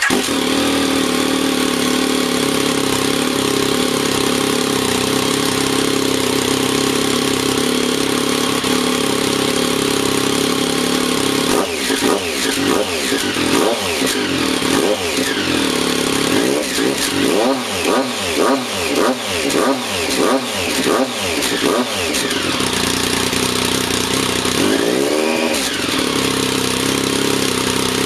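Vehicle engine exhaust idling steadily. From about halfway through it is revved in a string of quick throttle blips, about a dozen in ten seconds, then given one more rev and left to settle back to idle near the end.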